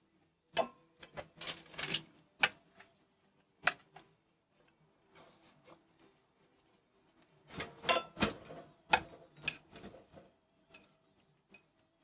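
Metal tongs and cookware clicking, knocking and clattering as food is handled in the oven: scattered sharp clicks in two busy spells, the first about half a second in and the second around eight seconds in.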